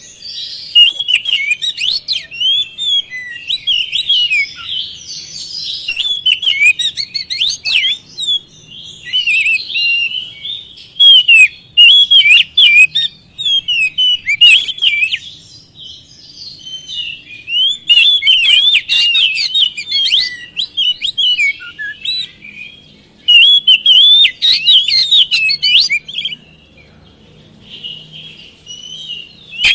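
Oriental magpie-robin singing loudly: a fast stream of varied whistled notes in bursts, broken by brief lulls. This is its full 'gacor' song, the kind used as a lure to set other magpie-robins singing.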